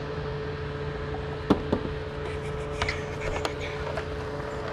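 A steady mechanical hum with a constant tone, with a few light clicks and knocks from objects being handled, the sharpest about a second and a half in.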